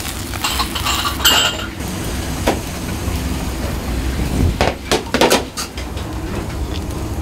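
Kitchen clatter of lacquer bowls and utensils being handled, with scattered clinks and knocks and a cluster of sharper knocks a little past halfway, over a steady low rumble.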